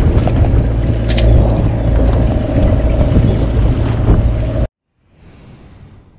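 Sportfishing boat's engine running under way: a loud, steady low drone with wind on the microphone and a few sharp clicks. It cuts off abruptly about three-quarters of the way through, leaving only a faint short hiss that fades away.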